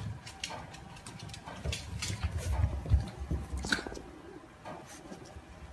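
French bulldog puppies' paws scrabbling and tapping as they play-fight, a run of irregular clicks, scuffs and soft thumps.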